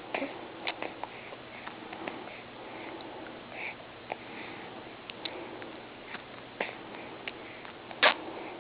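A pet eating: irregular small clicks and smacks of chewing, the loudest one near the end.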